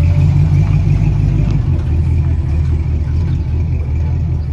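Late-1950s Chevrolet pickup's engine rumbling deeply and steadily as the truck pulls away at low speed, easing off slightly near the end.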